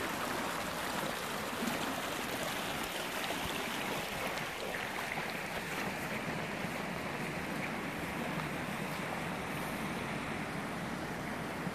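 Shallow mountain stream flowing over rocks, a steady, even rush of water.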